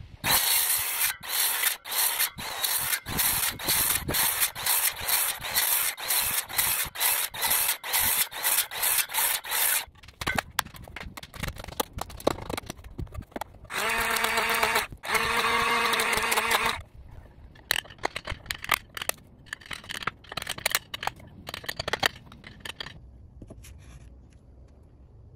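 Cordless circular saw cutting into a wooden post in about twenty quick passes, roughly two a second, for the notch's kerf cuts. About ten seconds in, a hammer knocks repeatedly at the wood to break out the waste. A motor then runs steadily twice for a few seconds, followed by scattered lighter knocks.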